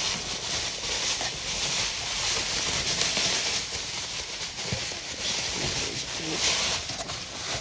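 Packaging rustling and crinkling as items are handled and pulled out of a box, continuing in uneven surges throughout.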